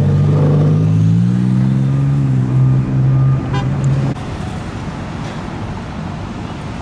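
Car engine running with a low hum that rises slightly in pitch, then drops away about four seconds in, leaving steady traffic noise.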